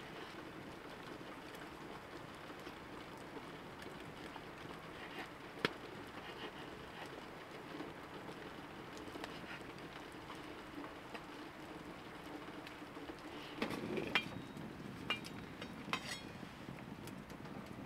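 A knife cutting gnocchi dough on a wooden cutting board, with a few sharp taps over a steady low hiss. About three-quarters of the way through there is a short run of louder knocks and clinks as a metal pot is handled.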